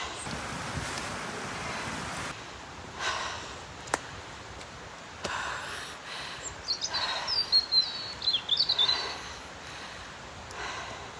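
A person breathing hard while climbing steep steps, with a heavy breath about every two seconds. Midway a bird sings a quick run of high chirps, the loudest sound here.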